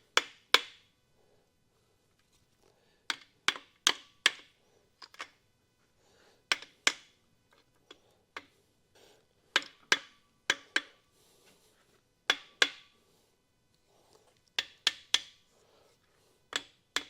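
Sharp metal-on-metal taps in quick groups of two to four, each with a brief bright ring. These are parts being knocked and worked loose on a Ford 300 inline-six during its teardown.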